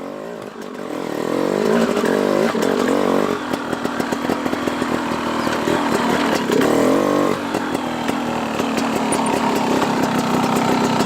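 Dirt bike engine running under way, the revs climbing and dropping a few times as the rider accelerates and shifts, with steadier running in between.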